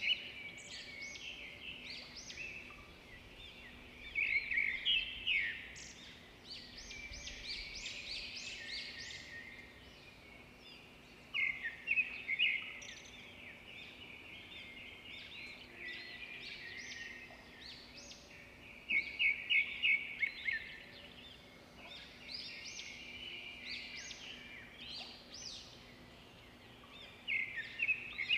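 Birds calling outdoors: bursts of quick, high chirps that come back about every seven or eight seconds, over faint steady background noise.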